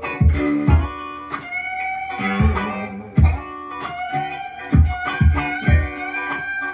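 Strat-style solid-body electric guitar played in a funky chicken-pickin' style, with held notes bent upward in pitch, over a backing track with a steady drum beat.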